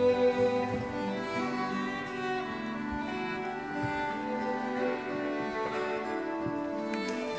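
Violin playing a slow, sustained hymn melody over a soft acoustic guitar accompaniment, in the instrumental passage of the hymn.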